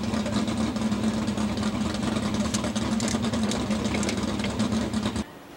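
Truck engine idling steadily, with scattered light clicks over it; the sound stops abruptly near the end.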